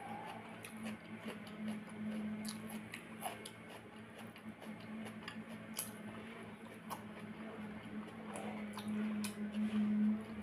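Wet squishing of fingers stirring curd-soaked pakhala (water rice) in a steel bowl, mixed with the small clicks and smacks of eating it by hand. A steady low hum runs underneath.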